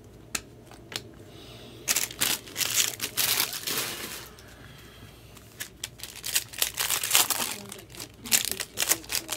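Trading-card pack wrappers crinkling and tearing in two irregular clusters of rustling, as packs are ripped open and handled.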